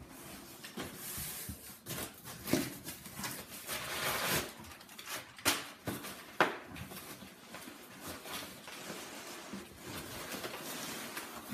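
Rustling and scraping of a long cardboard shipping box and its foam packing peanuts being handled, with sharp knocks about two and a half, five and a half and six and a half seconds in.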